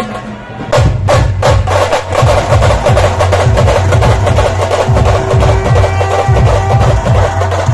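Dhol-tasha band playing: after lighter percussion, the big dhol drums and rapid tasha strikes come in about a second in, with deep booms under a dense, fast rattle of strokes.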